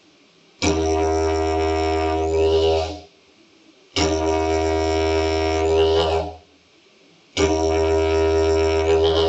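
Didgeridoo droning in three separate blown notes of about two and a half seconds each, the tone shifting near the end of each one, with short pauses between. This is a step of circular breathing practised in isolation: blowing, squeezing the cheeks together, then breathing in through the nose.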